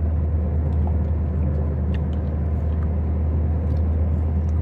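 Toyota Corolla engine and road noise on a test drive: a steady low rumble, the misfire and pickup fault freshly repaired.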